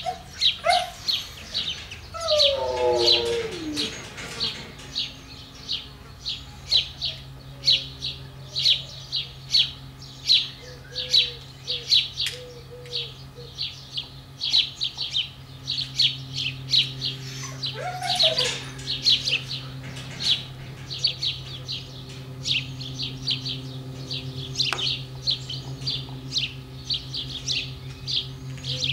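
A small bird chirping over and over, about two high chirps a second. A husky gives a short falling whine about two seconds in and a brief one again near eighteen seconds, over a low steady hum.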